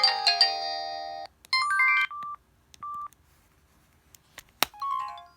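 A Samsung SGH-E720 mobile phone playing the end of a ringtone in chords of several tones, cut off about a second in. Then come the handset's short electronic beeps: a quick run at changing pitches, a lone beep, a click, and a short falling run of tones near the end.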